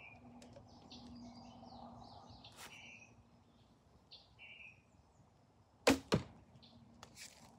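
A traditional longbow shot: the string thumps at release about six seconds in, and a fraction of a second later the arrow smacks into the target. Birds chirp faintly throughout.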